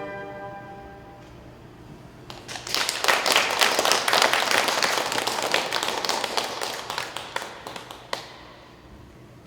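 The last note of a flute and piano piece fades out, then an audience applauds, starting about two seconds in and dying away near the end.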